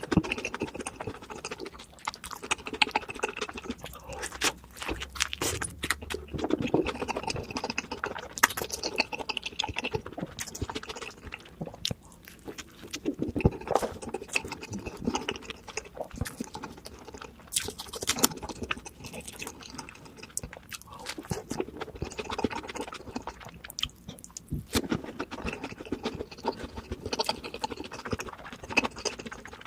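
A person chewing and crunching crispy fried fast food close to the microphone, with irregular crackles and crunches throughout.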